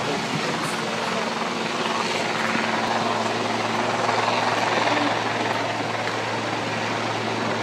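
Turbine helicopter running steadily on the heliport, with a continuous engine whine and rotor noise at an even level.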